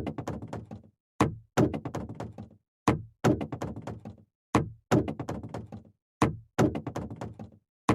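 Items dropped one after another into a sorting container. About every second and a half comes a single knock, then a short rattle of quick, fading knocks as the item bounces and settles.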